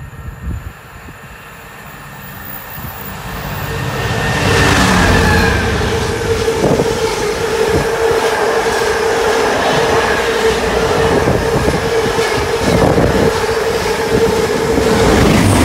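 A container freight train approaches and passes through the station: the rumble grows over the first few seconds, then the container wagons go by with a steady rush and the clatter of their wheels over the rails, and a steady mid-pitched tone runs under it until near the end.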